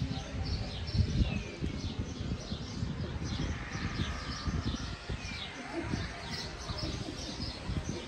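Many small birds chirping and twittering steadily, with a few downward-sliding whistles, over an uneven low rumble.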